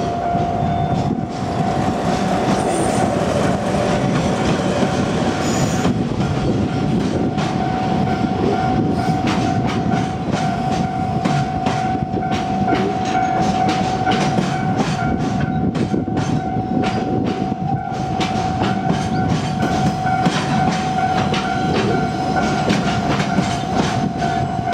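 Freight train rolling across a level crossing, its wheels clicking over the rail joints with a steady rumble. A steady high tone sounds over it throughout.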